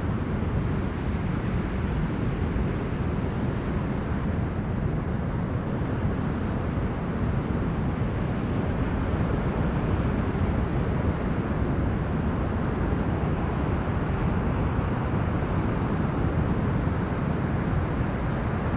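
Storm wind blowing hard across the microphone over waves breaking on a beach: a steady deep rumble with no let-up.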